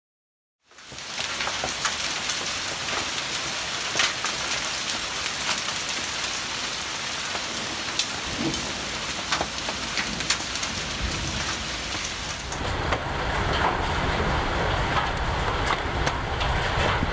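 Hail and heavy rain pelting down, a dense steady hiss studded with sharp ticks of hailstones striking roof tiles and hard surfaces. About two-thirds of the way through, the sound changes to a closer, fuller pelting of hail and rain on a stone ledge, with a low rumble underneath.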